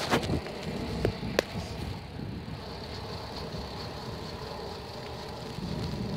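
Wind rushing over the microphone of a bicycle rolling downhill, a steady low rumble. A few sharp knocks come in the first second and a half.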